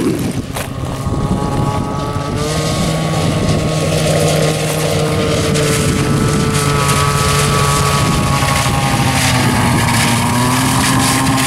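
Arctic Cat snowmobile engine running at speed. It grows louder over the first few seconds as the sled approaches, then holds a steady note that wavers slightly in pitch.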